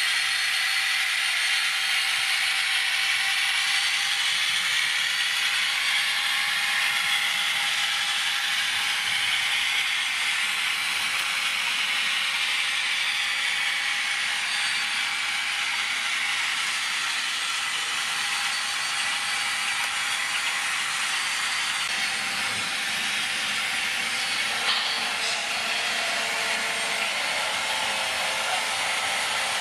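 Sound-equipped H0 model diesel locomotives playing recorded diesel engine running sounds through their small on-board speakers: a steady drone with a shifting whine over it. A single click about 25 seconds in.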